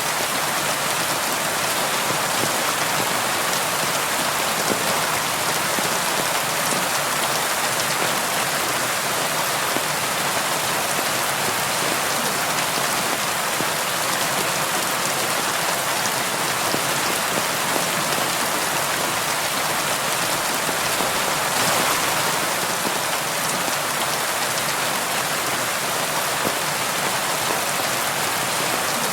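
Steady rain falling on a window: a dense, even hiss of drops that neither builds nor fades.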